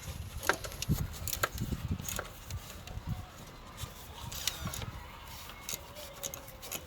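Scattered light clicks and knocks of a hex key working the bolts of a turbo recirculation valve, with irregular low bumps of handling.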